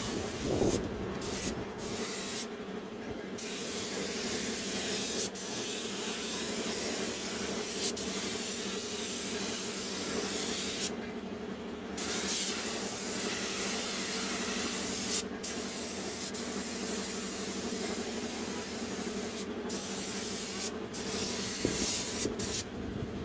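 Gravity-feed compressed-air paint spray gun hissing steadily as it sprays paint onto a tractor body, in long spells broken by several brief pauses. A steady low hum runs underneath.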